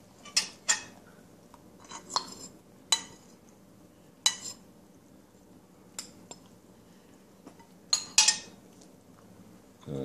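A metal spoon clinking and scraping against a ceramic bowl as food is scooped up: about nine short, sharp clinks at irregular intervals, some in quick pairs.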